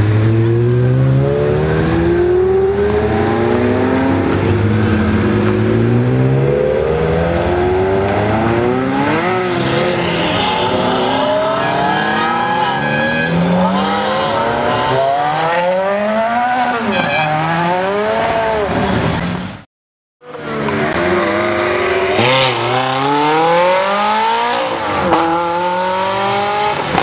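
Ferrari V8 sports cars revving and accelerating hard one after another, each run a climbing engine pitch broken by quick upshifts. The sound cuts out briefly about twenty seconds in, then another car revs and pulls away.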